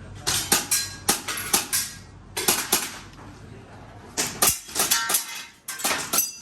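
Airsoft pistol firing rapid sharp cracks in quick pairs and short strings, several groups with brief pauses between them, as a shooter works through an IPSC course of fire.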